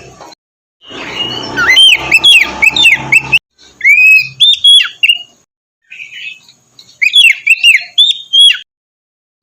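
Oriental magpie-robin singing loud whistled phrases of quick rising and falling notes, in several bursts broken by short silences.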